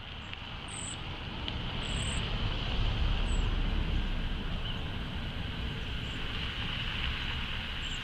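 Outdoor ambience fading up: a steady low rumble under a steady high insect drone, with three brief, very high, thin bird calls in the first few seconds.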